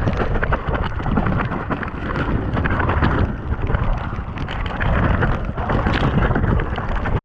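Loud wind buffeting the microphone, a rough rumble rising and falling in gusts.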